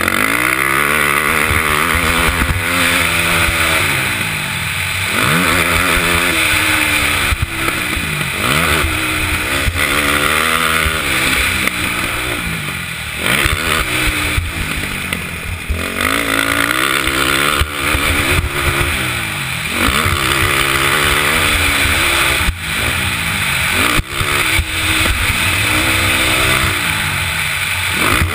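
KTM 450SX motocross bike's single-cylinder four-stroke engine, ridden hard round a dirt track. It revs up and drops off over and over, the pitch climbing through each pull and falling away at each shift or roll-off of the throttle, under a steady rushing hiss.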